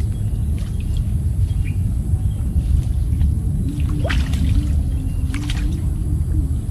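Water splashing and trickling under a steady low rumble, with a few short crackling splashes just past the middle.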